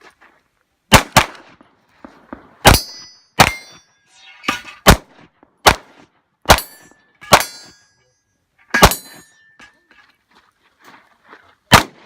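Pistol shots fired at an irregular pace, about ten in all, with steel targets ringing after several of the hits.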